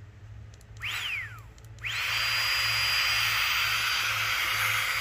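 Small battery-powered Max Pro 2 air pump switched on: a short whir that rises and dies away about a second in, then from about two seconds in it runs steadily with a high whine over the rush of air as it inflates a sleeping mat.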